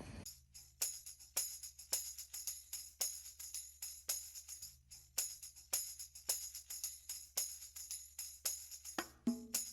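Background music carried by a steady, jingling percussion rhythm. A low melodic part joins near the end.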